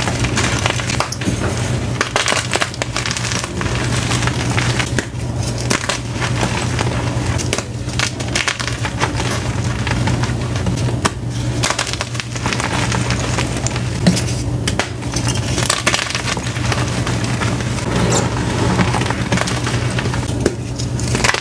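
Blocks of blue-dyed and plain gym chalk being squeezed and crumbled by hand, making a dense run of crunches and crackles as the blocks break apart into crumbs and powder.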